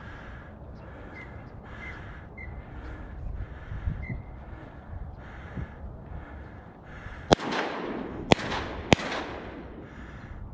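Three shotgun shots in quick succession about seven seconds in, the last two closer together, each followed by a brief echo, fired at a flock of cinnamon teal coming into the marsh.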